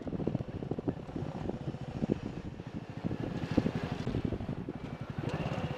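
Motorcycle engine running at low revs, a fast, even pulsing, with wind noise on the microphone. A steadier note comes in near the end.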